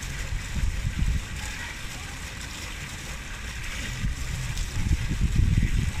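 Garden fountain jets splashing, under an uneven low rumble of wind buffeting the microphone that swells in gusts.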